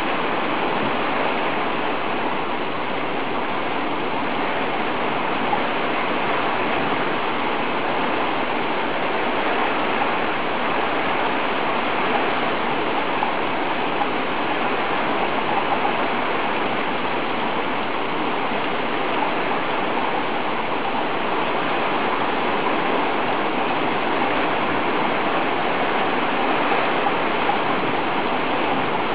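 Heavy thunderstorm downpour: hard rain falling steadily on the street, roofs and cars.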